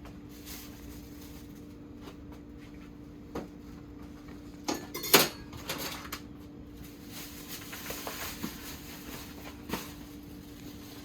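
Kitchen handling sounds at a stovetop: a few sharp knocks and clatters of cookware, the loudest about five seconds in, over a steady low hum.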